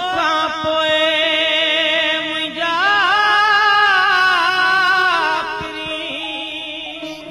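Background music with a voice singing long, wavering held notes. The melody steps up in pitch about three seconds in and fades near the end.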